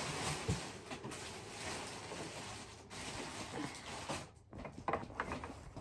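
Paper and fabric rustling: a backpack is handled and its crumpled packing paper pulled out. The rustling is irregular and goes briefly quieter about four and a half seconds in.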